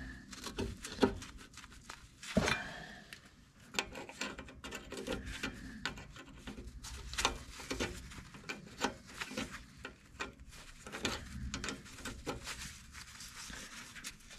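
Brake-line nuts being threaded by hand into a new rear wheel cylinder: irregular small metallic clicks and taps, with gloved fingers rubbing on the fittings and steel lines. A couple of sharper knocks come in the first few seconds.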